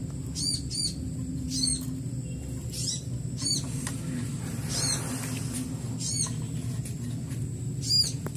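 A small bird chirping repeatedly: short high chirps at irregular intervals, about one a second, over a low steady background hum.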